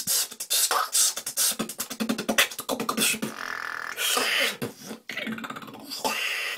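Human beatboxing: a fast freestyle of rapid mouth-made clicks and pops, with a held buzzing note a little past three seconds in.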